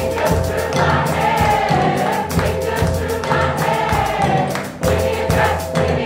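A large mixed choir singing in full voice over a steady drum and percussion beat.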